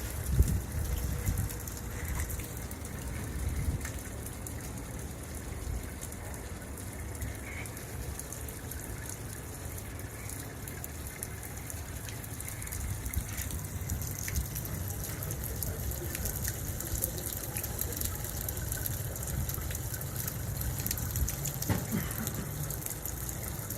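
Water and air gushing steadily out of a newly drilled artesian well under compressed air, a continuous rushing hiss over a low rumble.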